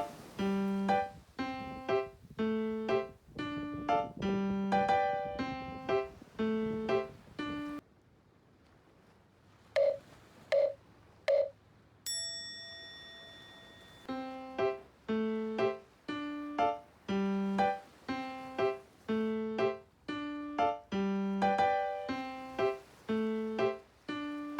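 Background music: a bright keyboard melody with a steady beat. About eight seconds in it breaks off; three short blips follow, then a held ringing tone, and the music resumes about fourteen seconds in.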